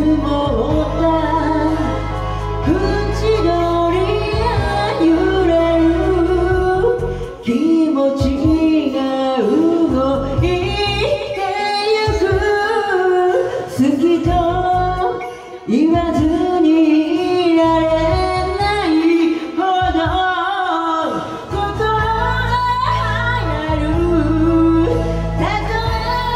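A woman singing a song into a microphone over a karaoke backing track. The bass of the backing drops out for a stretch in the middle and comes back near the end.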